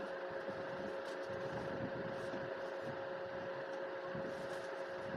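Steady machine hum with a constant whining tone, and faint light rustles of cardboard packaging being handled.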